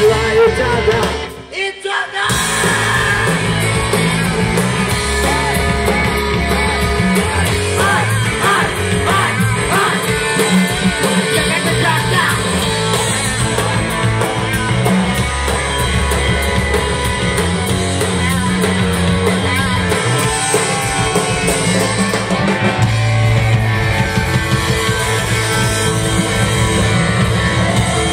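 Live rock band playing loud: electric guitar, drum kit and a singer. The band cuts out for about a second near the start, then crashes back in and plays on.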